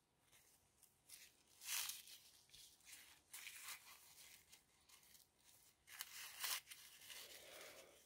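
Faint, intermittent rustling of craft materials being handled, in a few short soft bursts.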